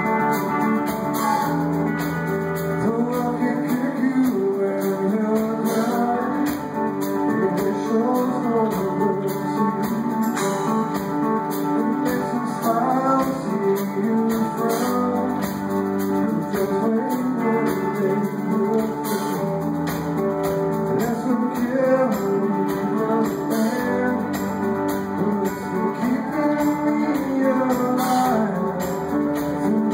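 Rock trio playing live: electric guitar, electric bass and drum kit.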